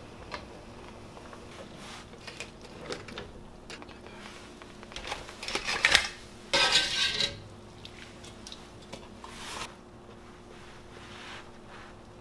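Wire spider strainer clinking against a metal pan and cooked mussel shells clattering into a stainless steel bowl as they are scooped out, with a louder burst of clattering about five to seven seconds in.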